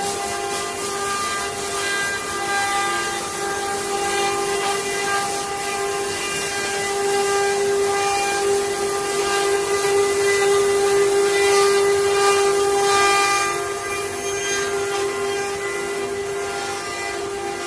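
CNC wood carving router's spindle running with a steady high whine over a hiss of cutting noise.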